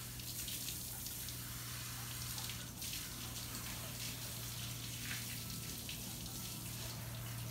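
Garden hose spraying water onto a golden retriever's wet coat and the patio pavers, a steady hiss of running water, with a steady low hum underneath.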